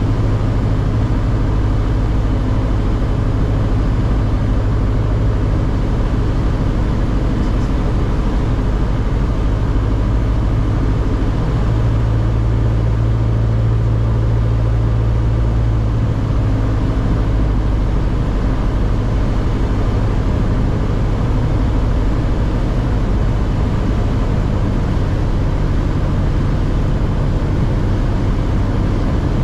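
Cabin sound of a Socata TB9 Tampico's four-cylinder Lycoming O-320 engine and propeller on approach: a loud, steady drone whose low hum shifts slightly in pitch a couple of times as power is adjusted.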